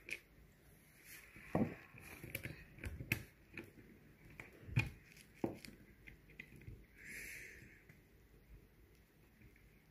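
Scattered small clicks and knocks of a plastic rail piece being handled and fitted by hand, with an Allen key working small screws; a short rustle about seven seconds in.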